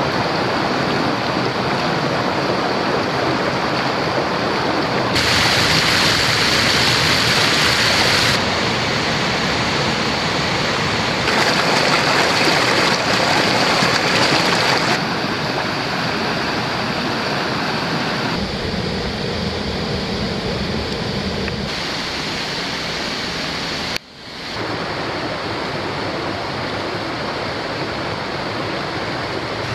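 Rushing water of a creek, a steady wash of noise that changes abruptly in loudness and tone every three or four seconds, with a brief sharp dip about 24 seconds in.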